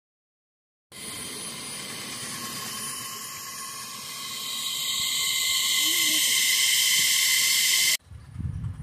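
Live-steam miniature locomotive hissing steam, a steady high hiss that starts about a second in, grows louder about halfway through, then cuts off suddenly near the end.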